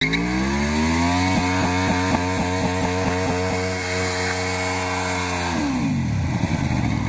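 Sport motorcycle engine revved hard and held at high revs during a burnout, rear tyre spinning on the asphalt. The revs climb over the first second or so, hold steady with a regular stutter, then drop away about five and a half seconds in.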